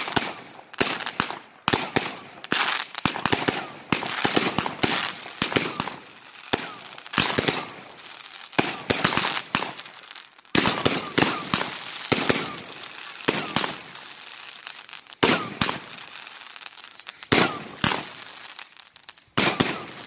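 Aerial fireworks bursting in rapid succession: a continuous run of sharp bangs, several a second at times, with crackling between the reports.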